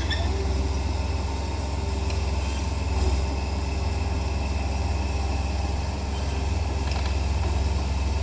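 Komatsu D31P bulldozer's diesel engine running steadily: a low drone with a faint steady whine above it, swelling briefly about three seconds in.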